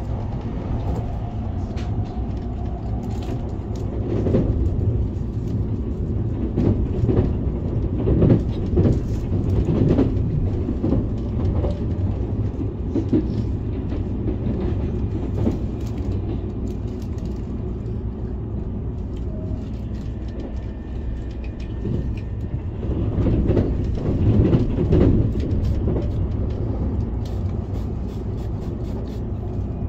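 Electric passenger train running along the track, heard from inside the carriage: a steady low rumble of wheels on rails. It grows louder and rougher twice, once while another train passes close alongside on the next track.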